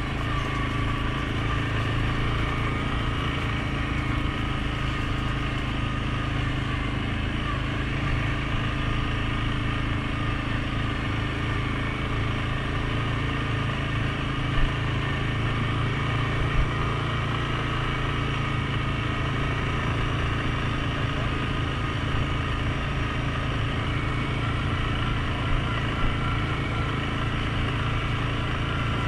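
Suzuki King Quad 750 ATV's single-cylinder four-stroke engine running at a steady, unchanging speed, with a few short knocks.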